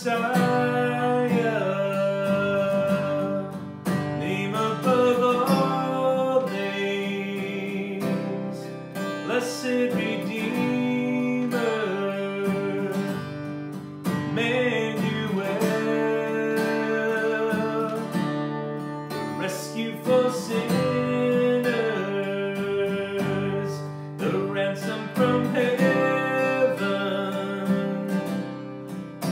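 A man singing a worship song to his own strummed acoustic guitar, the strumming steady throughout.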